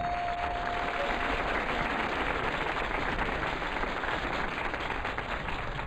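Studio audience applauding, an even spatter of clapping. A steady held tone sounds over it at first and fades out about a second in.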